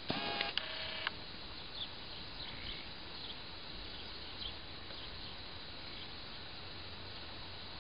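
A deer fawn gives one short, nasal bleat of about a second at the start, dropping in pitch halfway through. Faint, scattered bird chirps follow.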